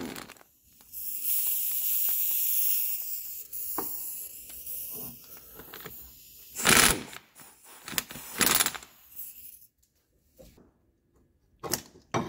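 Pneumatic air ratchet running bolts out of a transmission front plate, with air hiss. It runs steadily for a few seconds from about a second in, then gives two short bursts. Light metal clicks follow near the end as the loosened plate is handled.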